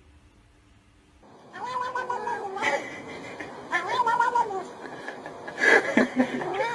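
A cat yowling in long drawn-out calls, starting about a second and a half in: two calls of about a second each, a few knocks, then a third call beginning near the end.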